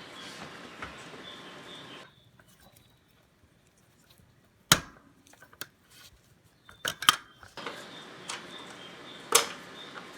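A series of sharp, separate clicks and clacks of hard dishwasher rack adjuster parts being handled and snapped into place, loudest about halfway in and again a little later, with one more near the end. Faint high chirping runs in the background at the start and end.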